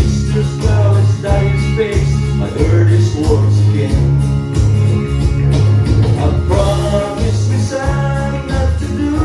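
A man singing a country song, accompanying himself on strummed acoustic guitar.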